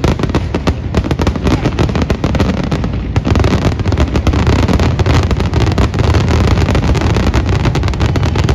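Fireworks finale barrage: a dense, continuous run of rapid bangs over a deep rumble, growing denser and louder about three seconds in.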